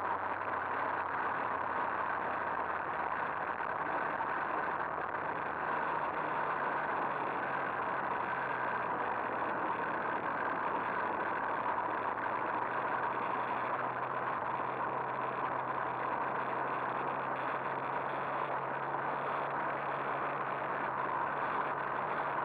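Two-stroke moped engine running at a steady cruising speed, mixed with steady wind and road noise.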